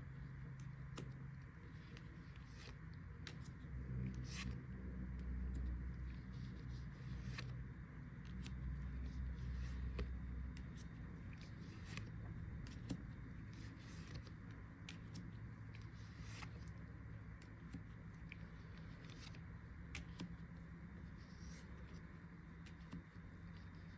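Faint low steady hum that swells for a few seconds, with scattered light clicks and scrapes.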